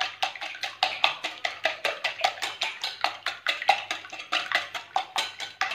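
Wire whisk beating eggs in a glass bowl, the wires clicking against the glass in a fast, even rhythm of about six strokes a second.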